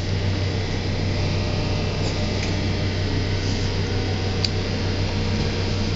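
Schindler elevator cab humming steadily, with a low drone and a few faint clicks.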